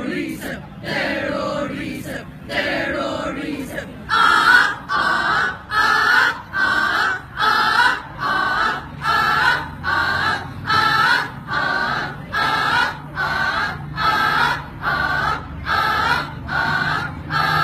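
A speech choir of many young voices chanting together. About four seconds in they settle into a steady rhythmic chant, with a short, pitched call in unison roughly three times every two seconds.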